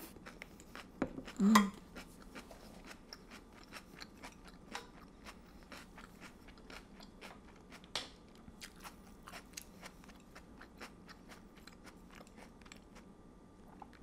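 Close-miked chewing of a mouthful of noodles and chicken: many small, wet mouth clicks, with a louder mouth sound about one and a half seconds in and a sharp click about eight seconds in.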